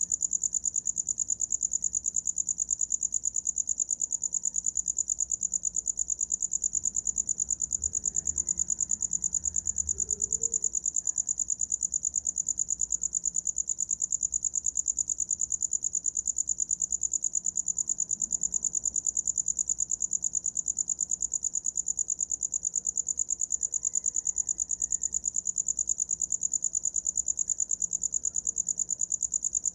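Cricket chirping: a continuous high-pitched trill of rapid, even pulses that never breaks.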